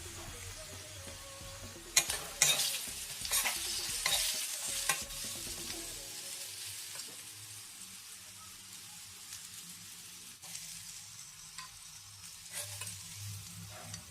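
Potatoes sizzling as they fry in oil in a pan. A spatula scrapes and knocks against the pan several times a couple of seconds in as they are stirred, then the sizzle goes on steadily and more quietly.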